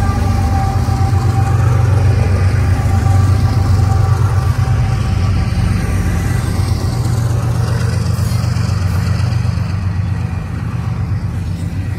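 BNSF diesel locomotives passing close by under power, a heavy low engine rumble with a whine that falls slightly in pitch as they go by. Near the end the rumble eases as the double-stack intermodal cars roll past.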